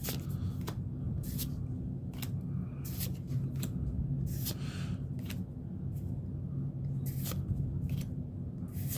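Pokémon trading cards being handled, with about a dozen short, crisp ticks and rustles at irregular intervals as cards are flipped and slid through the hands, over a steady low hum.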